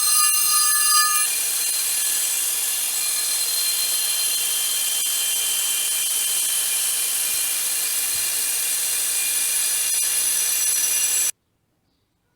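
Wire brush in an electric drill scouring a rear brake drum, with the drum ringing like a bell in several high steady tones over the steady scraping. The ringing is loudest at the start, and the sound cuts off abruptly near the end.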